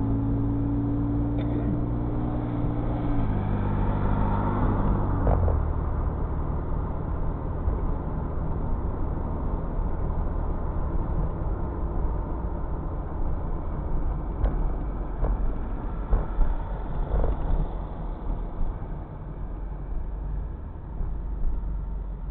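Car engine and road noise heard from inside the cabin as the car drives off and picks up speed. The engine note steps lower twice in the first five seconds, then settles into a steady drone of tyres and engine.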